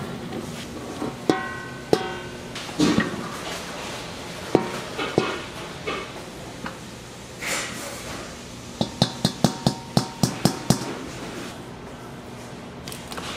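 Metal bakery pans and tools knocking and clanking. Scattered clanks give way to a quick run of about eight ringing metal knocks, about four a second, roughly nine seconds in.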